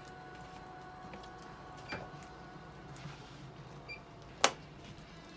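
Light clicks of plastic medical supplies being handled at a cat's intravenous catheter, with one sharp click about four and a half seconds in.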